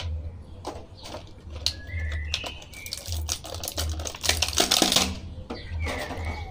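Clear plastic blister tray and packaging crackling and clicking as an action figure is pulled out of it, with a denser burst of rustling about four and a half seconds in.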